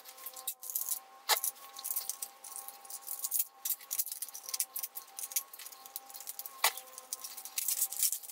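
Rapid clicks, clinks and rattles of small metal screws, shields and plastic laptop parts being handled and pried apart, with two louder sharp clicks, about a second in and near the end, over a faint steady tone.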